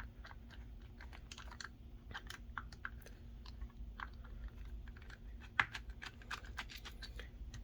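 Scattered light clicks and ticks of small reel parts and a hand screwdriver being handled, with one sharper click about five and a half seconds in.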